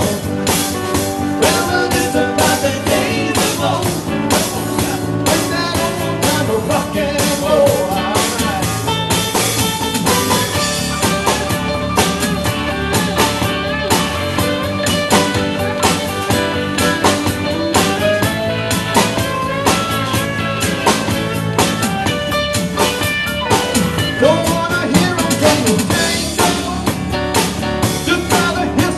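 Live band playing an instrumental passage: electric guitar over a drum kit keeping a steady beat.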